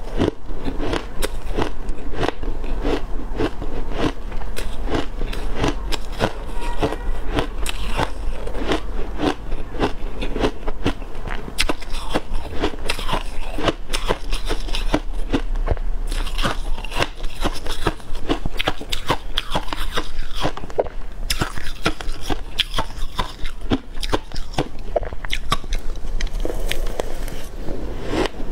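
A person crunching and chewing shaved ice dusted with matcha and milk powder, close to the microphone. Crisp crackling bites follow one another without pause throughout.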